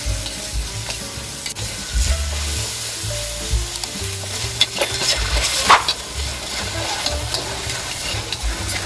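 Diced bacon with garlic and onion sizzling in a hot stainless steel wok, while a spatula stirs it and scrapes against the pan now and then.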